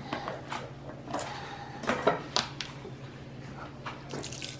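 Light kitchen handling noises: scattered clicks and knocks of containers and utensils against a rice cooker pot, over a steady low hum. Near the end a soft rushing starts as broth begins pouring onto the rice.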